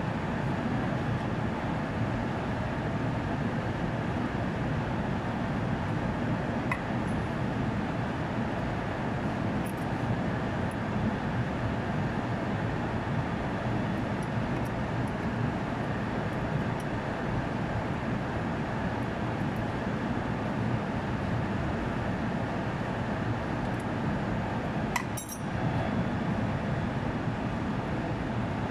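Steady drone of running plant-room machinery, overlaid with a few light metallic clinks of hand tools on a fitting. The sharpest clink comes near the end.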